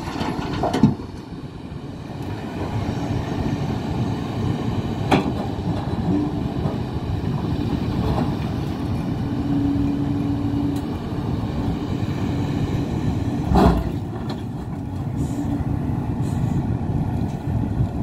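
Hidromek HMK 390LC hydraulic excavator working in rocky ground: a steady diesel engine and hydraulic drone, with a held hydraulic whine near the middle. Sharp clanks of bucket and rock come about a second in, about five seconds in, and loudest near the end.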